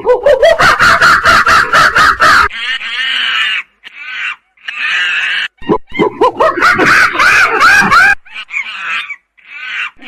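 Chimpanzees calling loudly: rapid hoots that climb in pitch into screams. There are two main bouts, one in the first couple of seconds and another about six to eight seconds in, with shorter calls between them.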